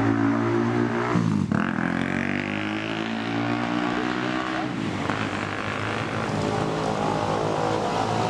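A motor vehicle's engine running under way. Its pitch drops and then climbs again after a shift about a second in, and changes again around four and a half seconds in, as it accelerates through the gears.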